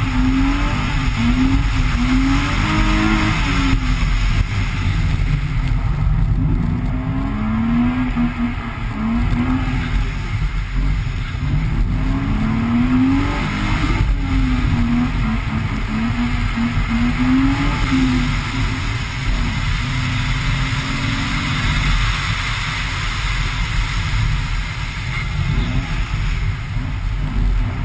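BMW E30's engine revving up and down again and again while being driven hard on a snowy road, over a steady low rumble.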